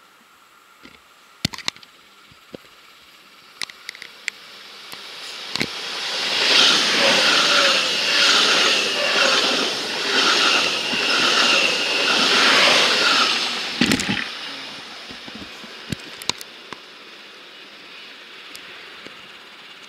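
ICE-T (BR 411) electric tilting train passing at speed: a rising rush of wheel and air noise that peaks for about seven seconds with a rhythmic pulse about every three quarters of a second, then drops off suddenly. A few sharp clicks come before and after the pass.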